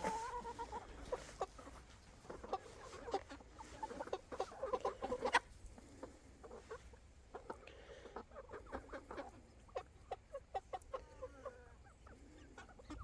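A flock of young chickens clucking, many short calls coming in quick runs.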